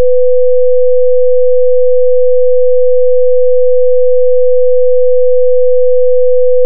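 Steady, loud 500 Hz sine tone from the PhET Sound simulation's speaker, played at full amplitude.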